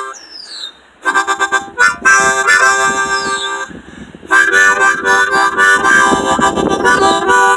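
Harmonica played in chords, in phrases with short breaks about a second in and around four seconds in. A bird gives three short, high, falling whistled calls over the playing.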